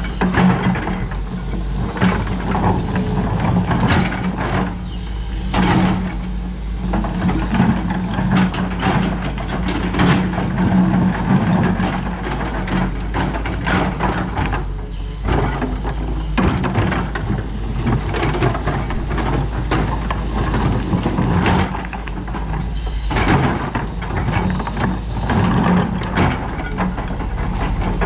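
Doosan DX225LCA tracked excavator working: its diesel engine runs steadily under load, with frequent clanks and rattles from the machine and the material it handles.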